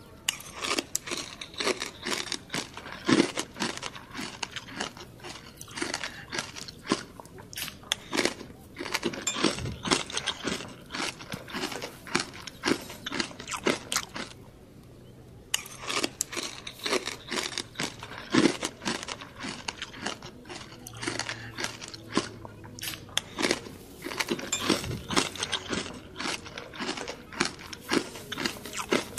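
Close-up crunching and chewing of crispy pata, the deep-fried pork knuckle's crackling skin, in quick irregular crunches, with a short pause about halfway through.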